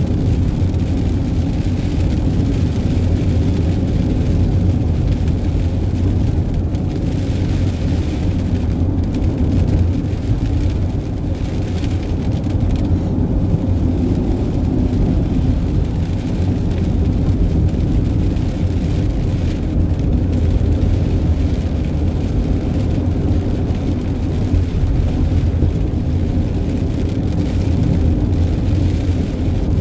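Vehicle driving on a wet motorway: a steady, loud low road rumble with an even hiss of tyres on the wet surface.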